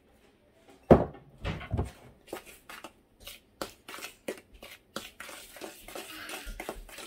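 Kitchen handling sounds from a spoon and a plastic bowl of flour: a thump about a second in, then a run of light clicks and knocks, and a scraping rustle near the end as the spoon works through the flour.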